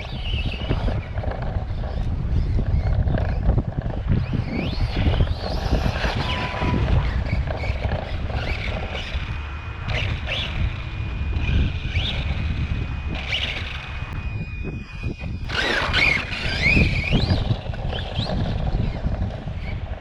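Arrma Kraton 4S brushless RC truck running laps, its motor whine rising and falling with the throttle over a steady rumble from the drivetrain and tyres. The drivetrain has the noise the owner puts down to an unhappy bearing or gear.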